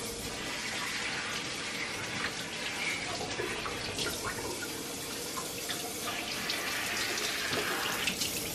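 Kitchen tap running water in a steady stream, starting and stopping abruptly.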